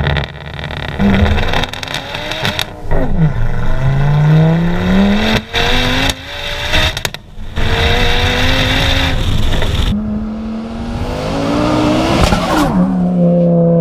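Heavily modified, decatted Ford Focus RS turbocharged 2.5-litre five-cylinder accelerating hard up through the gears: the engine note climbs in each gear, with short breaks at the shifts. Near the end the car is heard approaching and passing close by.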